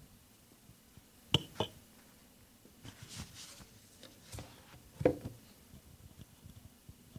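Handling noise at a wooden lectern: two sharp knocks close together, then rustling, another knock and a heavier thump, as a handheld microphone and items on the lectern are picked up and moved.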